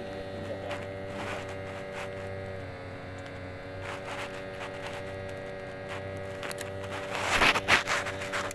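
A boat's engine running with a steady hum that dips slightly in pitch about two and a half seconds in. Near the end comes the scraping and clatter of a spinning reel being handled and cranked.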